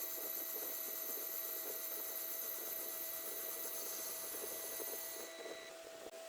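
Metal lathe turning a brake disc while the cutting tool takes a pass: a steady high-pitched whine over a rough, grainy scraping. The higher whine drops out about five and a half seconds in.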